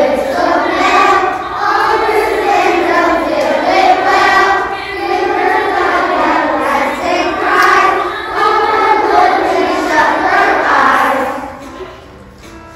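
A large group of children singing a song together as a choir, the singing dying away about a second before the end.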